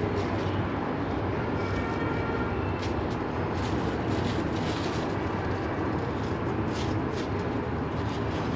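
Steady low background rumble, with faint crinkling of the foil-backed silver leaf (varq) sheets as they are handled and pressed onto the dish: a few light rustles about three seconds in and again near the end.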